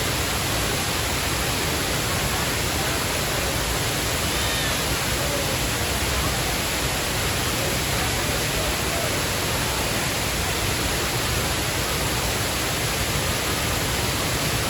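Waterfall, its falling water making a steady, even roar.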